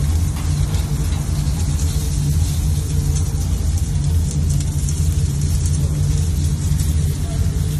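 A steady low mechanical hum under a light, fine crackling from kokoreç roasting on rotating spits over charcoal.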